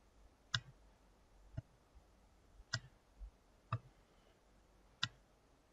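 Computer mouse clicking: about five single sharp clicks, irregularly spaced roughly a second apart.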